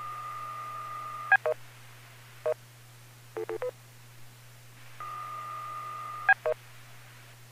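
DTMF touch-tones sent by a computer to a ham radio remote base to change its frequency. Each long steady beep is followed by short touch-tone beeps, and there are two such runs.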